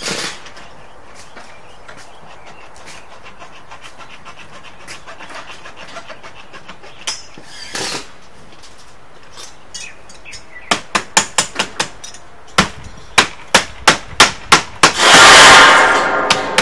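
Hammer blows on metal roofing: quiet for the first part, then two quick runs of sharp strikes, about two or three a second, starting a little past halfway. Near the end a loud noisy burst about a second long is the loudest sound.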